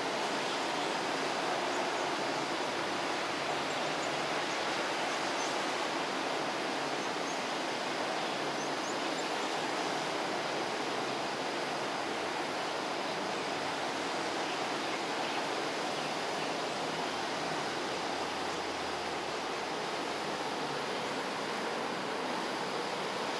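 Steady, even outdoor hiss of ambient noise with no distinct events.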